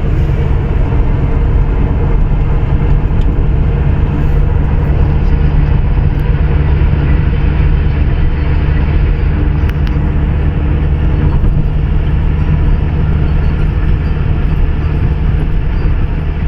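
Steady road noise inside a moving car's cabin on a highway: a deep engine and tyre rumble with wind hiss, unbroken throughout.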